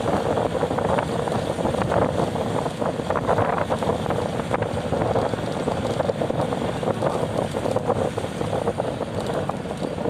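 Wind buffeting the microphone over the steady rumble of a moving vehicle, with gusty crackles all through.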